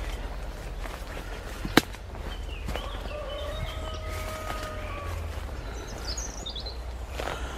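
Birds calling and singing in woodland over a steady low rumble, with one sharp click a little under two seconds in.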